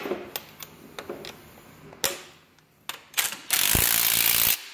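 Hart 20V half-inch cordless impact wrench hammering a bolt tight for about a second and a half near the end, cutting off suddenly. Before it come a few light clicks and knocks of tools against steel.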